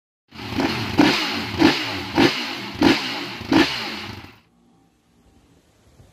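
Motorcycle engine revved in five sharp throttle blips about 0.6 s apart, then cut off abruptly.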